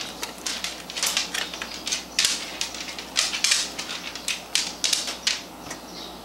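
Persian cat licking and chewing peanut butter off a butter knife: a run of sharp, irregular smacking clicks, about four a second.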